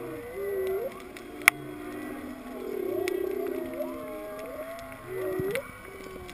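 Humpback whale song heard underwater: a run of wavering, gliding moans and whoops, with a long moan about three seconds in and quick rising whoops near the start and near the end. Scattered sharp reef clicks, one loud click about a second and a half in.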